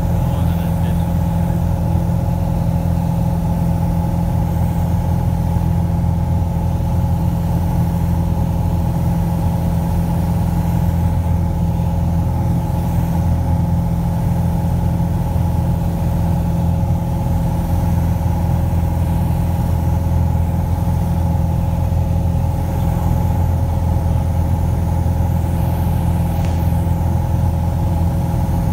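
Piper Arrow light aircraft's four-cylinder piston engine and propeller running at a steady cruise setting: a loud, even drone that holds its pitch without change.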